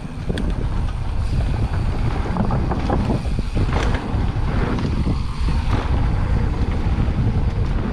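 Wind rushing over the microphone of a mountain bike descending a dry, dusty dirt trail, mixed with tyre and drivetrain noise and a few sharp rattles from the bike.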